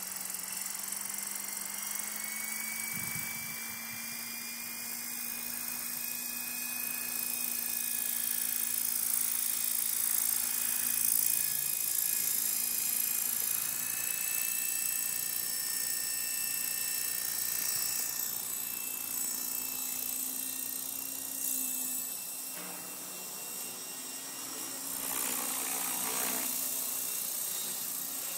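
Gaui 550 Hurricane electric RC helicopter with stretched blades flying: a steady rotor hum under a high motor and gear whine, its pitch drifting slightly and its loudness swelling and easing as it lifts from a low hover and climbs away. It is flying oddly, which the pilots put down to batteries that can't take the load.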